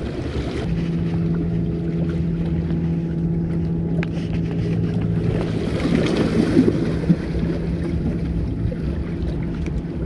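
Wind on the microphone and water lapping at the shore, with a steady low motor hum that starts about a second in. The noise gets rougher and louder for a moment around the middle.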